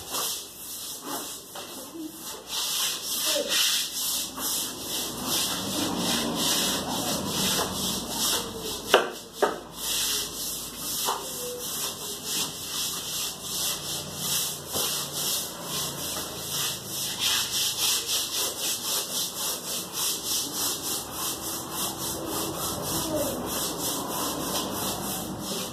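A stiff brush scrubbing a hard bathroom surface, in rhythmic back-and-forth strokes about two to three a second. A single sharp knock about nine seconds in.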